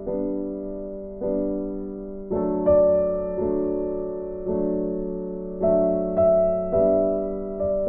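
Background music: slow, gentle keyboard chords, a new chord struck about once a second and left to fade.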